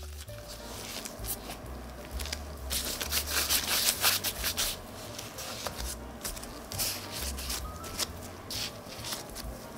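Nitrile-gloved hands rolling and rounding balls of bread dough on a wooden board: a dry rubbing and scuffing in quick repeated strokes, loudest about three to four seconds in.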